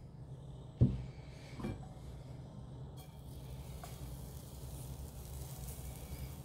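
A sharp knock about a second in, then a smaller one, as chocolate cake batter is spooned into a hot frying pan; about three seconds in a faint sizzle starts as the batter meets the hot pan.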